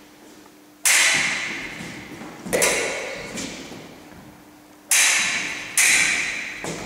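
Foil blades striking each other four times, each sharp metallic clash ringing out and dying away slowly in the echo of a large hall.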